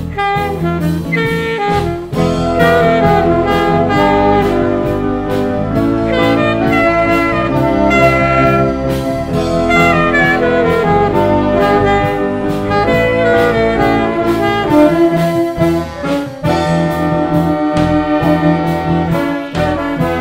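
Youth jazz ensemble of saxophones, flute and piano playing an upbeat tune together, with a steady beat.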